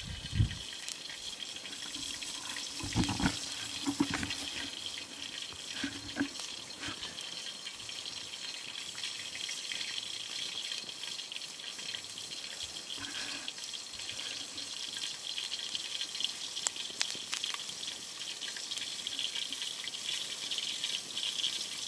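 Open wood campfire burning: a steady hiss with scattered crackles and pops, and a few low thumps in the first several seconds.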